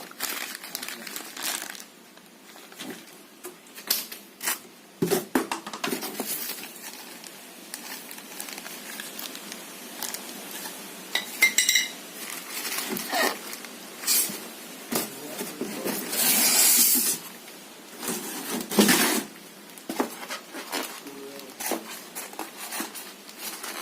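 Scattered clinks, knocks and clatter of ceiling fan parts being handled and set down during unboxing, with a brief ringing tone midway and a second-long rustling scrape about two-thirds of the way through.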